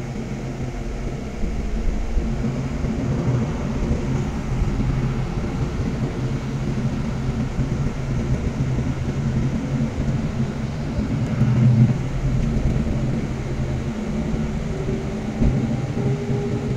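Cabin noise of a city bus under way: the engine's steady low drone and rumble from the road, a little louder from about two seconds in.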